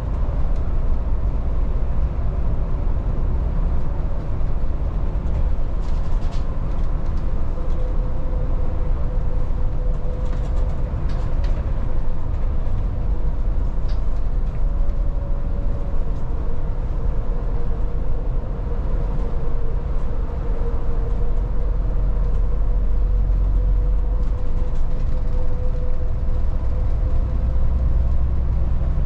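Volvo 8900 city bus running, heard from inside the cabin: a steady low rumble with a thin, steady whine above it and a few faint rattles.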